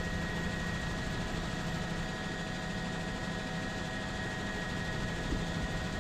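Helicopter engine and rotor noise, a steady drone with a constant high whine running through it.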